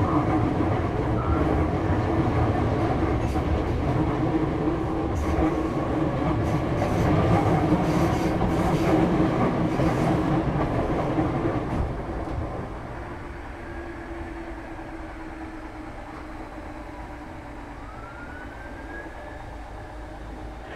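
Interior running noise in the motor coach of a Class 313 electric multiple unit with GEC traction equipment: a steady rumble and hum under way. It quietens markedly about twelve seconds in, and a faint rising whine follows near the end.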